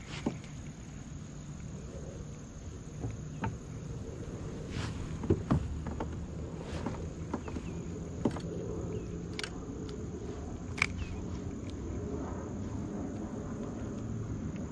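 Evening insect chorus, a steady high even chirring, over a low rumble of water and wind. Scattered light clicks and knocks, the handling of the kayak and fishing gear, run through it.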